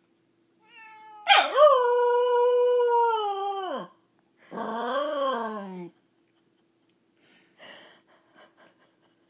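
Welsh corgi howling: one long howl that scoops up, holds a steady pitch for about two and a half seconds and falls away at the end, followed by a shorter call that rises and falls in pitch.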